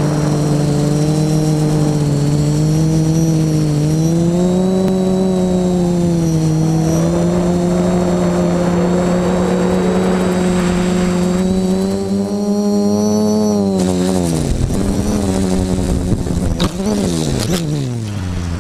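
Flip FPV quadcopter's electric motors and propellers buzzing steadily in flight, the pitch shifting a little with throttle. About fourteen seconds in the pitch falls away steeply, then rises and falls again with a sharp knock as the quad comes down after a propeller breaks off.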